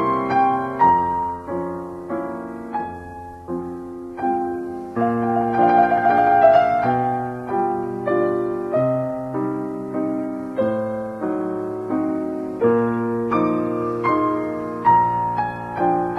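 Background piano music: notes struck and left to fade, with chords changing about once a second.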